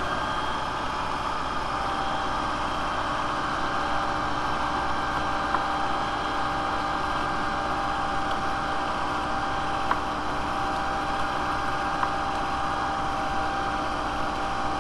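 Mk IV VW Golf's 2.0-litre four-cylinder engine idling steadily while warming up to operating temperature during a thermostat test. There are a couple of faint light ticks around the middle.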